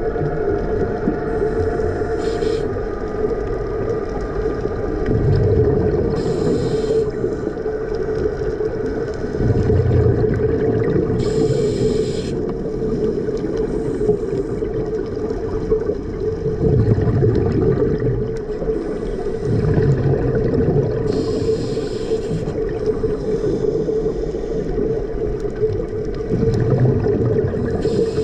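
Underwater sound of a scuba diver breathing through a regulator: a short hiss of inhalation every few seconds, alternating with the low rumble of exhaled bubbles, over a steady low hum.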